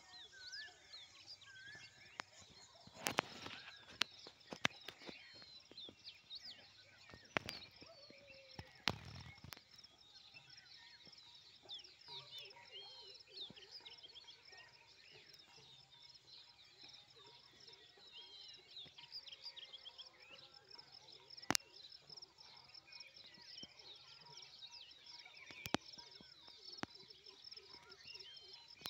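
Dawn chorus: many birds chirping and calling at once in short rising and falling notes. A few sharp knocks stand out, several in the first ten seconds and two more later on.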